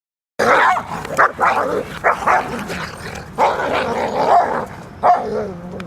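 A dog barking loudly, starting abruptly about half a second in: a quick run of short barks, then a longer drawn-out one and a last bark that trails off.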